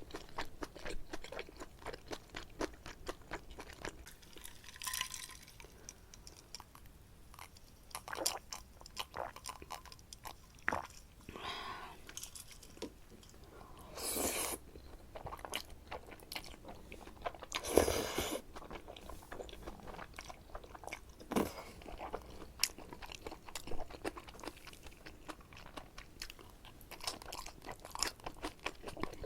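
Close-miked eating sounds: a mouthful of black bean noodles with shrimp and squid being chewed, with many small wet mouth clicks. Two louder, longer slurps come about halfway through and again a few seconds later.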